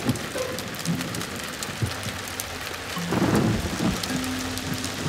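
Steady heavy rain, a cartoon sound effect, with a rumble of thunder about three seconds in.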